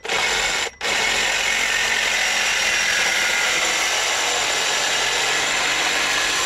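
Cordless reciprocating saw cutting through 35 mm copper pipe. It stops briefly less than a second in, then runs steadily.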